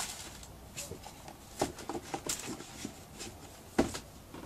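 Handling noises of a sneaker unboxing: a cardboard shoebox and a pair of sneakers are moved about and set down on a wooden table, giving scattered light taps and clicks. A louder thump comes near the end.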